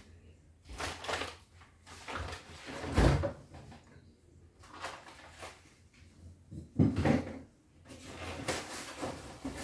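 Groceries being put away in a kitchen fridge: the fridge door opened and packages set on its shelves, a string of knocks and clunks with the louder ones about three seconds in and around seven seconds in.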